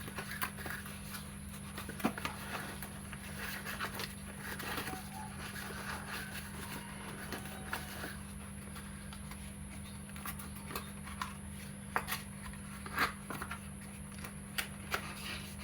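Scattered soft clicks, taps and rustles of a graphic pen tablet, its cable and its packaging being handled, over a steady background hum.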